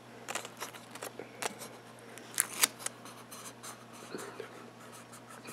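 Clear Scotch tape handled and pressed down by hand: scattered soft ticks and rustles, with a couple of sharper crackles about two and a half seconds in.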